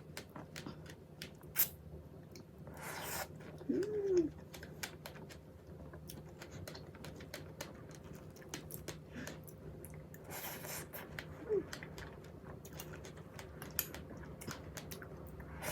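Close-up eating sounds: scattered soft clicks and taps of a utensil, with mouth and chewing noises and two short puffs of breath.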